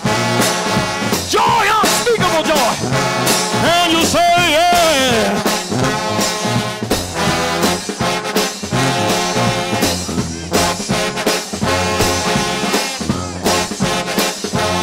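Trombone shout band playing gospel: a lead line slides and bends in pitch over the first few seconds, then the massed trombones play full chords to a steady beat with percussion.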